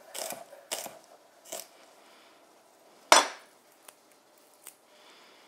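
Chef's knife chopping shallot on a wooden cutting board: a few sharp knocks in the first second and a half, then one louder knock of the knife on the board about three seconds in.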